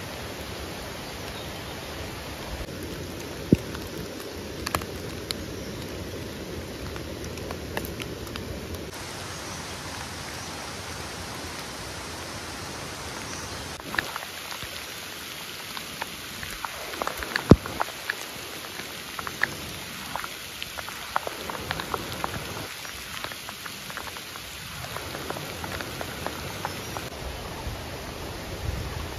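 Hands picking termite mushrooms from dry leaf litter: scattered snaps and crackles of stems and dry leaves, busiest in the second half, over a steady hiss.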